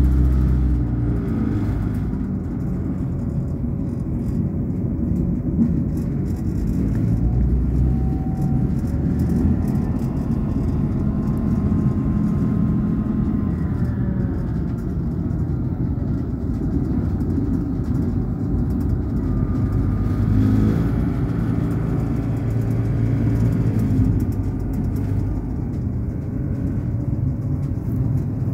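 Moving passenger train heard from inside the carriage: a steady low rumble of running noise, with faint whines that rise and fall in pitch now and then.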